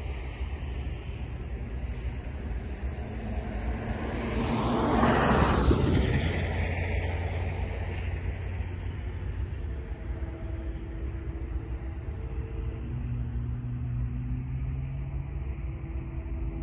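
A passing vehicle rises and falls about five seconds in, over a low rumble. From about ten seconds in, the approaching NS 4439's Nathan K5LA horn sounds in the distance in several long blasts.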